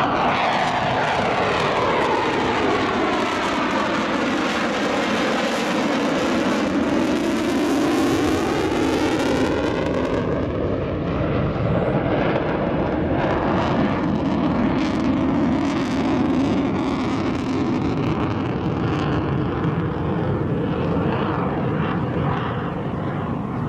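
Panavia Tornado's twin RB199 turbofans on a low display pass: loud jet noise sweeping down in pitch as the jet goes by, its high hiss falling away about ten seconds in and leaving a steady rumble as it recedes.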